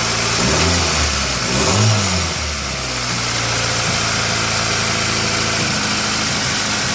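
2000 Honda CR-V's 2.0-litre four-cylinder engine running cold with a misfire, revved up and back down twice in the first couple of seconds, then idling steadily. The random misfire is the one behind code P1399, worst when cold, which the owner takes for an ignition problem.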